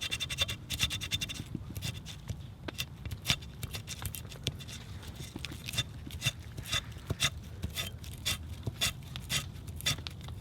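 Birch bark being scraped into fine fibres for fire tinder: a run of short, uneven rasping strokes, a couple a second.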